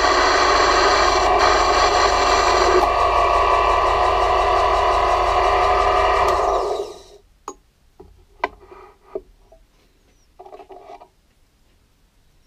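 Vintage Lesto Scintilla metal lathe running while a twist drill in the tailstock bores into a spinning aluminium workpiece. The higher-pitched part of the sound drops away about three seconds in. The lathe shuts off and winds down a little past halfway, followed by a few sharp metallic clicks and a short rattle as tooling is handled.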